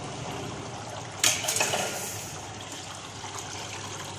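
Coolant (water mixed with cutting oil) running and splashing in a chain-link fencing machine's tank, a steady wash of liquid noise. About a second in there is a sudden louder splash that fades over about a second.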